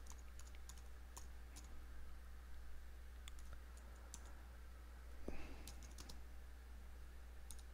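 Faint computer keyboard typing: scattered single key clicks as a shell command is typed, over a steady low hum. A short, soft, louder noise comes a little after five seconds in.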